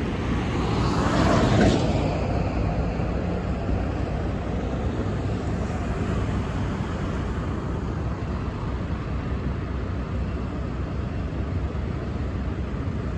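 Road traffic: a pickup truck drives past close about a second in, then a steady low rumble of traffic goes on.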